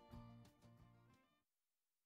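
Faint background music fading out and stopping about a second and a half in.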